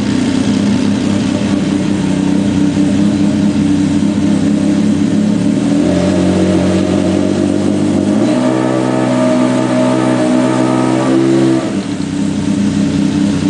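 Converted Yamaha 120 hp snowmobile engine running on a gyroplane with its propeller on, revved up in two steps about six and eight seconds in, held, then dropping back near the end. The revs are kept low; around 2,500 rpm the newly fitted centrifugal clutch engages and drives the propeller.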